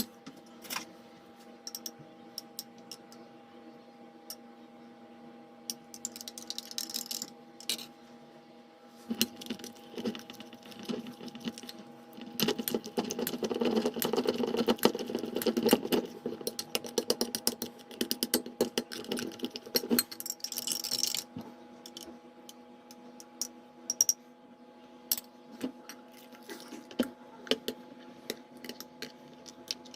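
Kitchen utensils tapping and clinking on dishes, with a busy stretch of rapid clicking and scraping in the middle, over a steady low hum.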